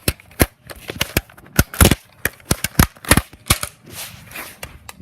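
Nerf dart blasters firing, about a dozen sharp pops in quick, irregular succession, thinning out near the end.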